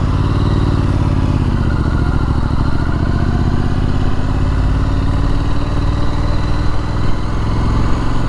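Triumph Street Scrambler's 900 cc parallel-twin engine running under way, its pitch climbing a little over the first couple of seconds and then holding steady.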